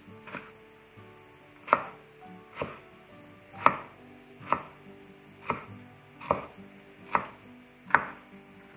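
Kitchen knife chopping a bell pepper on a wooden cutting board: sharp knocks of the blade on the wood, about one a second.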